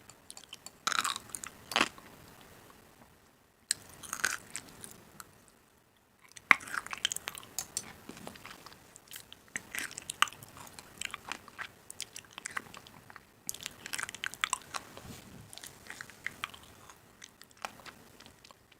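Irregular crisp crunching and clicking in clusters, broken by two short pauses.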